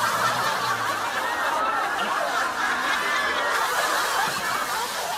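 Audience laughing, many voices together.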